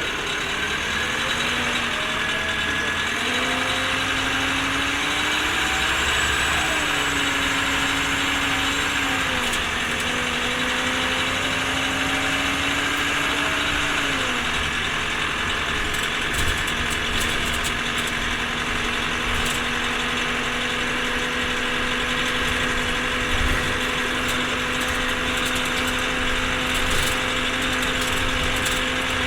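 Orion V transit bus running, its engine and drivetrain whine rising and falling in pitch a few times over the first half, then holding a steady pitch.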